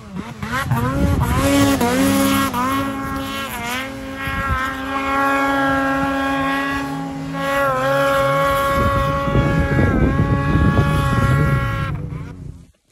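Snowmobile engine revving hard: its pitch climbs over the first two seconds and then holds high, dipping briefly a few times. A second engine runs lower underneath, and the sound cuts off shortly before the end.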